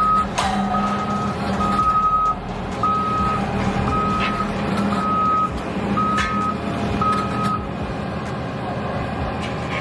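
Reversing alarm on a heavy construction truck beeping about once a second over its running diesel engine, stopping about three quarters of the way through. A sharp sound stands out about half a second in.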